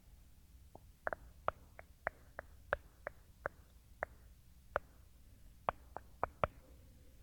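A run of faint, short, sharp clicks, about fifteen of them at uneven spacing, starting about a second in, over low tape hiss and hum.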